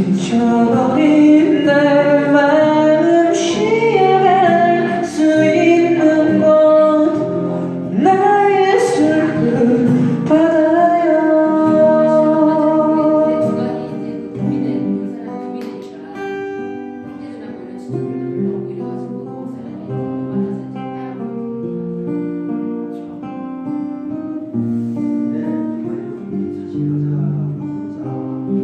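A singer with an acoustic guitar performing a Korean ballad live; the voice stops about halfway through and the acoustic guitar carries on alone, more quietly, in an instrumental interlude.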